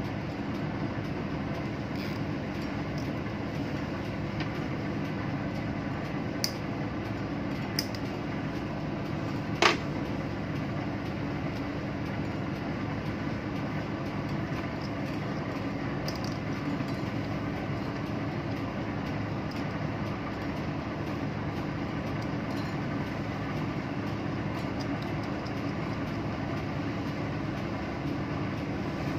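Steady drone of a ship's running machinery, low and even with a few steady tones in it. A few light clicks break through, the sharpest about ten seconds in.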